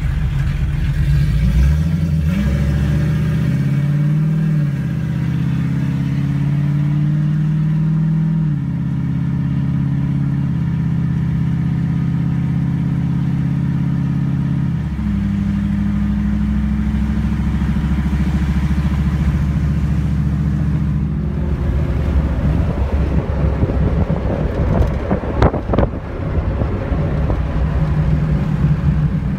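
Cabin sound of a 5.2 Magnum V8 fitted with aftermarket heads and cam, pulling away from a stop: the engine note rises under throttle, drops at an upshift about eight seconds in and again about fifteen seconds in, then settles to a steady cruise. Near the end it grows rougher, with a few sharp knocks of handling noise.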